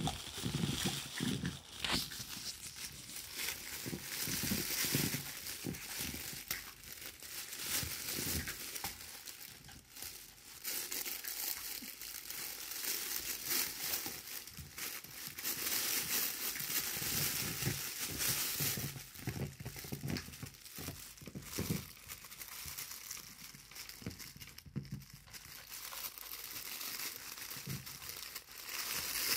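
Small pets clambering over a spiky rubber balance cushion and a fabric play tunnel: steady irregular crinkling and scratching, with soft thumps now and then.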